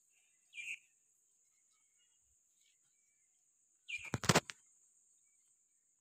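Steady high-pitched drone of insects, with a brief chirp near the start and a short burst of loud crackling and clicks about four seconds in.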